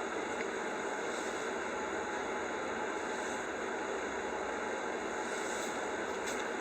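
Steady hiss of background noise with no speech, even and unchanging throughout.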